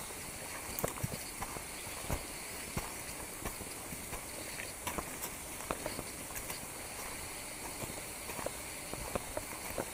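Footsteps of hikers walking on a leaf-covered forest trail, with irregular soft crunches and thuds about once or twice a second, over a steady high hiss.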